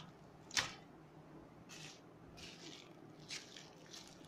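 Plastic packaging crinkling and rustling as it is handled, with one sharp crackle about half a second in and several softer rustles after it.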